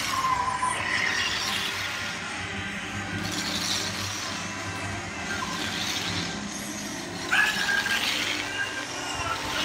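Fireworks show soundtrack of film sound effects and music playing over loudspeakers, with fireworks bursting overhead; a sudden loud burst comes about seven seconds in.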